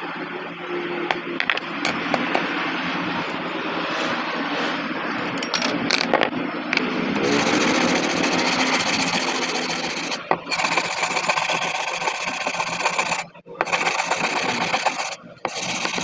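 A glass cutter scoring a sheet of mirror glass, a scratchy scrape with a few small clicks, then the edge of the cut mirror glass being rubbed, a denser steady rasping from about halfway through that breaks off briefly a few times.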